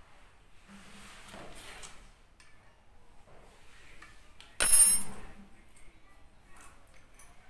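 Steel hand tools handled against a bare car cylinder head during valve clearance adjustment, with light rustling and ticking of metal. About halfway through, one sharp metallic clink rings briefly and is the loudest sound.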